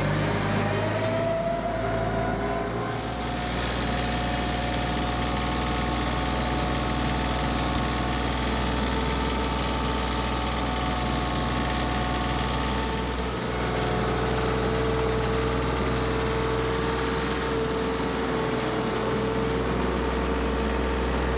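TYM 2515 compact tractor's diesel engine running steadily while hauling hay bales, its pitch rising briefly near the start and then holding even.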